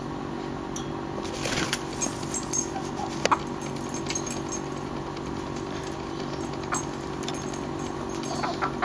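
A steady low mechanical hum with a few fixed tones. Over it come scattered short clicks and a brief scuffle about a second and a half in, as a puppy tumbles with a hen on grass.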